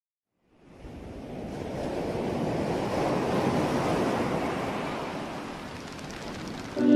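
A rushing noise that fades in about half a second in, swells to its loudest around the middle, eases off, and cuts off abruptly near the end.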